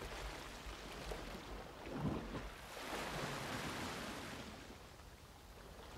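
Sea waves washing at the shore, swelling about two seconds in and easing off toward the end.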